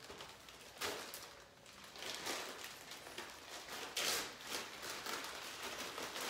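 Clear plastic zip-top bags rustling and crinkling as they are handled and filled, in irregular bursts, the loudest about four seconds in.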